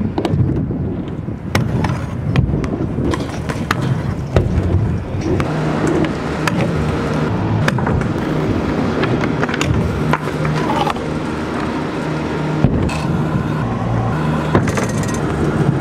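Stunt scooter wheels rolling over skatepark ramps, with frequent sharp clacks and knocks as the deck and wheels hit the surface and grind on ledges and rails.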